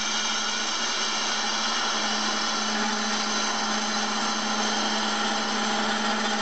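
Wood lathe running steadily, a constant hum over a dense hiss, as a ball-turning jig's cutter shaves the surface of a spinning wooden sphere.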